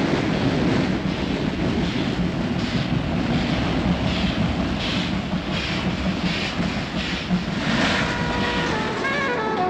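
A train running, a steady rumble with a rush about every three quarters of a second. A short run of falling musical notes comes in near the end.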